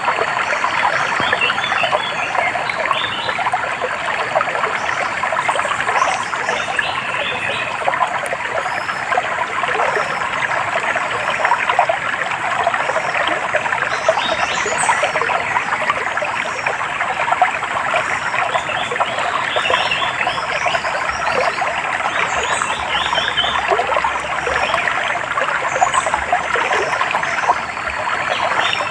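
Running water of a stream trickling steadily, with short bird chirps and twitters scattered over it throughout.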